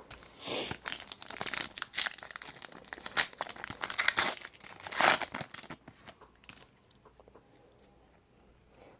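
A trading card pack's wrapper being torn open and crinkled: a run of crackling rips and rustles over about the first six seconds, dying down to faint handling.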